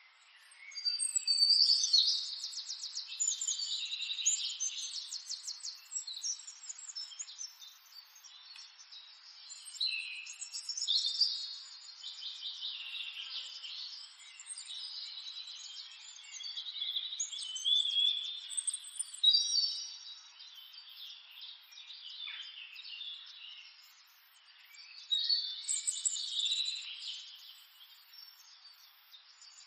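Birds chirping and singing, with high trills and calls coming in repeated bursts.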